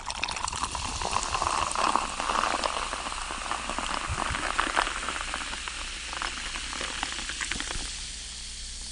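A carbonated drink poured from a can into a glass, fizzing loudly with a dense crackle of bursting bubbles that slowly dies down.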